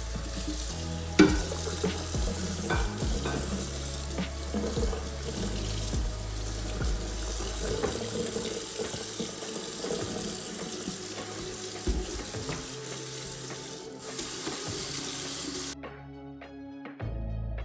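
Kitchen tap running into a sink during washing-up, with scattered clinks and knocks, the loudest about a second in. The water stops near the end, leaving soft background music.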